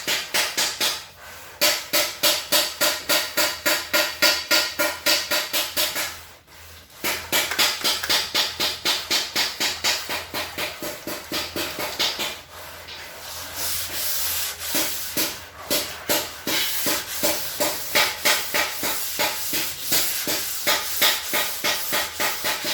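Sandpaper rubbed back and forth by hand over a car's metal engine hood in quick, even strokes, about three or four a second, with a few short pauses.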